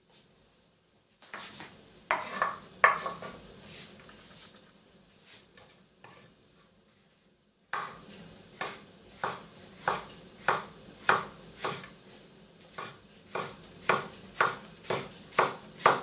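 Kitchen knife slicing garlic cloves on a wooden cutting board: a few knocks a couple of seconds in, then from about halfway a steady run of sharp blade taps on the board, about two a second.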